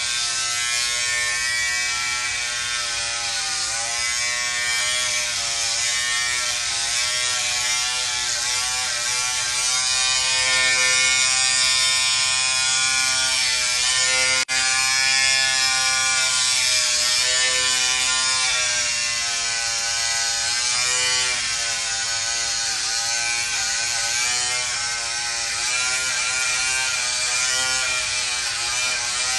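Corded electric hair clippers buzzing steadily as they shave close-cropped hair on a head, the pitch wavering slightly as they move. The sound cuts out for an instant about halfway through.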